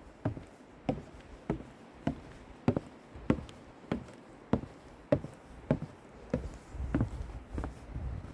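Footsteps of a person walking at a steady pace, about one step every 0.6 seconds, each a short thud. A low rumble comes in near the end.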